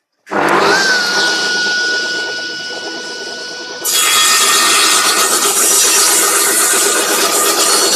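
Homemade table saw driven by a washing machine motor switching on, its whine rising quickly to a steady pitch; about four seconds in the diamond blade bites into a thick piece of timber, and a loud sawing noise carries on.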